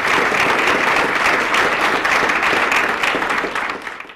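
Audience applauding: a dense, even patter of many hands clapping, dying away near the end.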